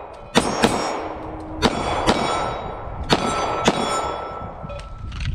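Semi-automatic pistol fired six times in three quick pairs at steel targets. The struck steel plates ring with a sustained metallic tone between the shots.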